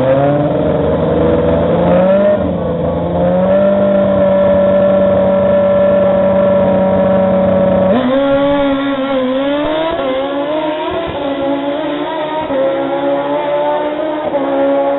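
Two drag-racing sport motorcycles at the starting line, engines held at steady high revs, then about halfway through launching and accelerating away, the engine pitch dipping and climbing repeatedly.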